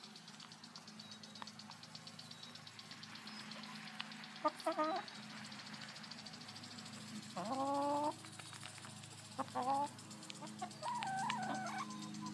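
Several backyard hens calling. There are short calls about a third of the way in, one longer call that rises at its start about two-thirds in, and more short calls followed by a wavering call near the end, all over a steady low hum.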